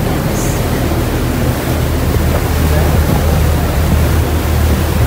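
Tour boat under way: a steady low engine hum under the rush of churned water and wind buffeting the microphone.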